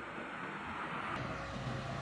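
Road traffic passing on a bend: a steady hiss of tyres and engine noise. The low engine rumble drops away at the start and builds again near the end as another vehicle approaches.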